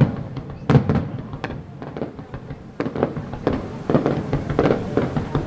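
Aerial fireworks shells bursting, with three loud bangs in the first second and a half, then a quicker run of smaller crackling reports.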